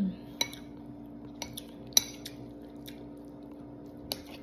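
Metal spoon clinking and scraping against a ceramic bowl while scooping food: about half a dozen sharp clinks, the loudest about two seconds in.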